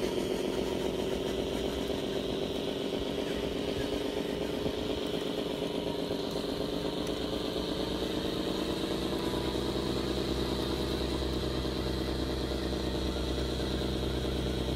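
1/14-scale RC Volvo 8x4 tipper truck driving, with a steady engine drone and a higher whine above it. The pitch lifts slightly and the low end grows fuller about two thirds of the way through.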